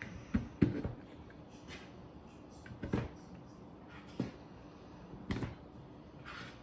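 Plastic 3D-printed parts being handled on a tabletop: several light knocks and clicks as pieces are picked up, shifted and set down, the loudest under a second in, with a brief soft scrape near the end.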